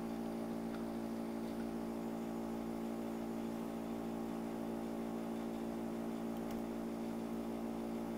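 A steady hum made of several even tones, unchanging throughout.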